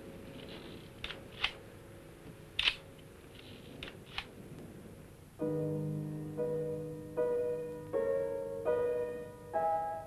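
A low hum with a few sharp clicks, then about five seconds in a slow piano melody begins, one note at a time, roughly one per second.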